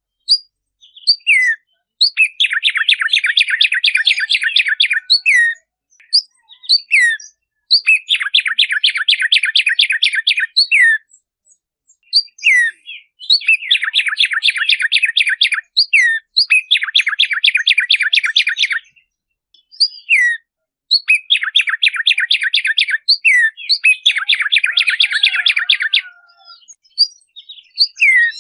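Black-striped sparrow (tumba yegua) singing: about seven phrases of fast, evenly repeated notes, each two to three seconds long, with single downslurred notes in the short gaps between them.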